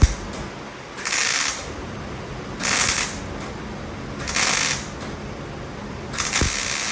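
MIG welder laying short tack or plug welds on a car quarter panel: four crackling, hissing bursts, each about half a second long, the last one longer. A sharp click right at the start.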